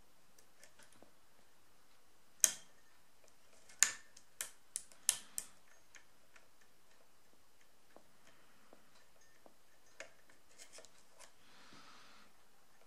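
Metal clicks of a lock pick and tension wrench working the pins inside an Ace padlock's core during single-pin picking: about six sharp clicks in quick succession, starting some two seconds in, then fainter scattered ticks and a brief soft scrape near the end.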